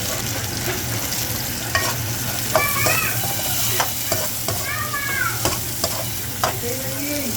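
Food sizzling as it is sautéed in a pan, stirred with a utensil that clicks and scrapes against the pan, with a few short squeaks.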